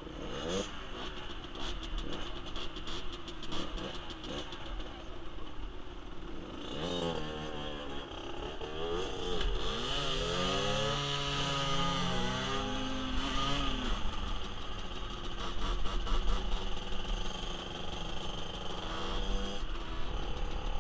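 Small 50cc motorcycle engine running low, then revving up as the bike pulls away. From about seven seconds in its pitch climbs and drops repeatedly as it goes up through the gears.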